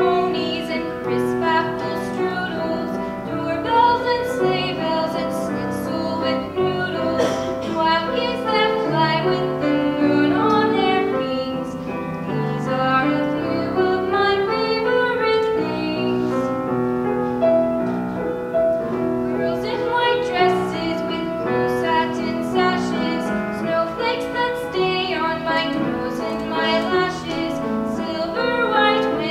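A girl singing solo, sustaining long notes, with piano accompaniment.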